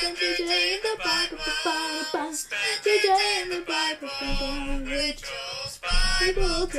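Intro song: a singing voice over music, the melody stepping and gliding in pitch, with low bass notes coming in about two-thirds of the way through and again near the end.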